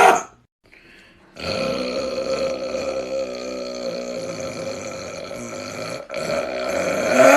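A person burping in one long, drawn-out burp at a steady pitch, starting about a second and a half in and lasting about four and a half seconds. After a brief break it goes on, and a louder burp starts near the end.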